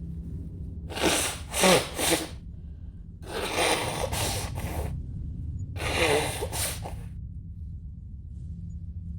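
A woman sneezing loudly in a bout, with gasping breaths between: a quick cluster of sneezes and gasps about a second in, a longer noisy one from about three to five seconds, and another about six seconds in. A steady low hum lies underneath.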